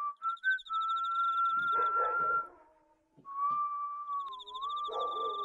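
Whistling: a few short notes, then a long held note, a short break about halfway, and another long held note that dips briefly in pitch before settling.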